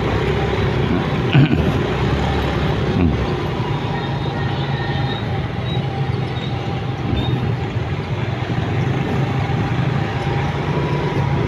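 Motorcycle engine and the surrounding city traffic heard from the saddle while riding: a steady engine hum under road noise, with a short rise in engine pitch about three seconds in.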